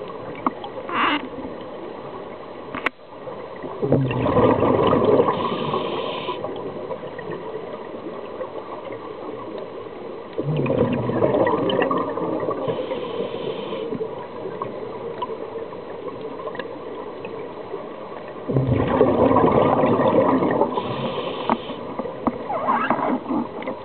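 Scuba diver breathing through a regulator underwater: three long rushes of exhaled bubbles, roughly seven to eight seconds apart, each with a short high regulator hiss. A single sharp click about three seconds in.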